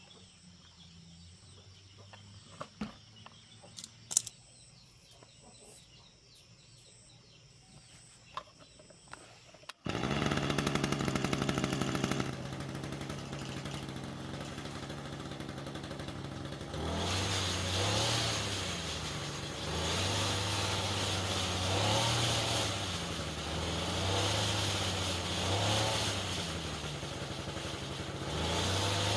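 Small petrol engine of a lawn-mower-type generator cutting in suddenly about ten seconds in and running steadily. From about halfway through, its speed rises and falls every couple of seconds. Before it starts there are only faint ambient sounds with a few sharp clicks.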